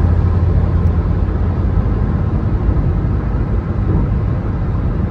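Steady low rumble of road and tyre noise heard inside a car's cabin while driving at highway speed.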